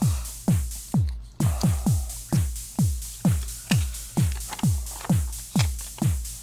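Background electronic dance music with a steady four-on-the-floor kick drum, about two beats a second, and ticking hi-hats.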